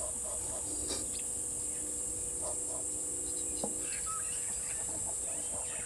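Steady high-pitched drone of insects, with scattered short bird chirps and calls over it.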